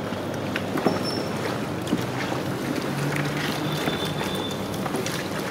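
Raw chicken pieces being mixed by hand with egg and spice paste in a large aluminium pot: scattered wet squelches and small slaps. These sit over a steady noisy background.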